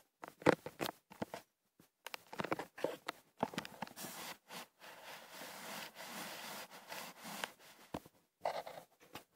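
A cat jostling the cat cam and brushing against it: irregular knocks and scrapes on the camera, then several seconds of steady rubbing noise as fur or the body presses against the microphone, with a few more knocks near the end.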